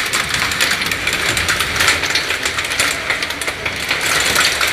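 Strong storm wind blowing hard, a loud continuous rush broken by a dense, rapid, irregular crackle.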